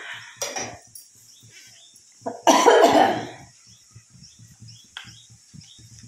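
A person coughing: a short cough about half a second in, then a louder fit of coughing about two and a half seconds in. Faint low knocks sound in between.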